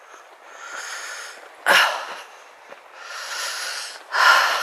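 A walker breathing hard close to the microphone, several breaths in and out with the sharpest about one and three-quarter seconds in and the loudest near the end. He is out of breath from a long hike in the heat.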